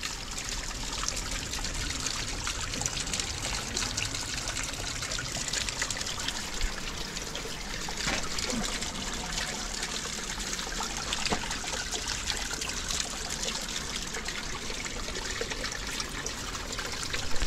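Spring water running steadily out of a rock face and trickling and splashing over loose stones.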